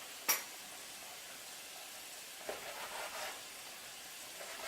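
Sweet plantain slices frying in hot vegetable oil, a steady sizzle. A sharp click comes about a third of a second in, and a few faint knocks follow around the middle.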